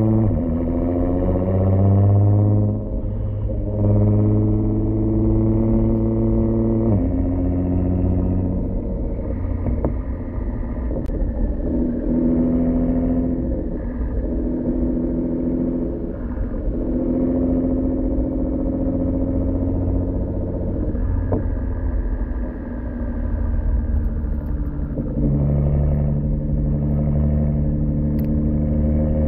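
Nissan GT-R R35's twin-turbo V6 heard at the tailpipes through an HKS Legamax 85 mm exhaust with an AMS mid pipe, while being driven. The exhaust note rises at first, then holds mostly steady, with several steps in pitch as the car shifts gears.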